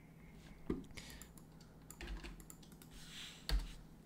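Computer keyboard keys clicking as a command is typed. There is a heavier low thump about three and a half seconds in.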